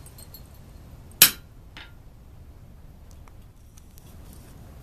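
A ball-peen hammer strikes a hand-held chisel once, about a second in, with a sharp metallic clang as the chisel cuts a vein into a heated iron leaf on the anvil face. A much fainter tap follows about half a second later.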